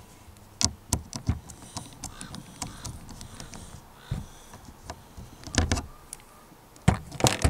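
Scattered clicks and knocks of tools and parts being handled at a workbench, with a cluster of sharper knocks near the end.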